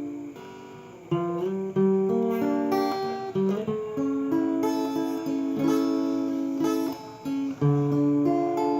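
Instrumental music: a melody of plucked notes on a string instrument, no singing, quiet at first and coming in about a second in.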